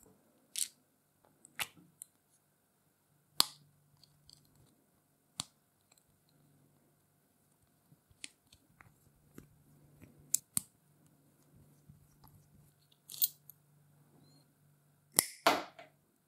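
Small compressor parts being handled on a wooden workbench: a dozen or so scattered sharp clicks and taps, the loudest cluster near the end, over a faint low hum.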